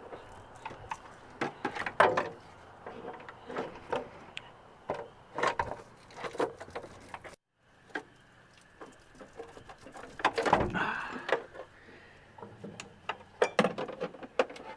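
Irregular clicks and knocks of a wrench and metal parts while the 13 mm engine ground bolt is undone and the negative battery cable is worked free, with one louder knock about ten and a half seconds in.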